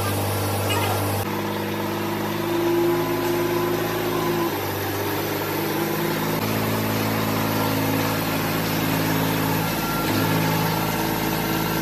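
Mini tractor's diesel engine idling steadily, its tone shifting abruptly a few times.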